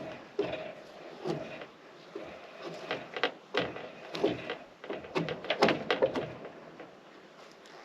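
Drawknife stripping bark from a wet pine log: a run of irregular scraping strokes, some sharp, coming thick and fast in the middle.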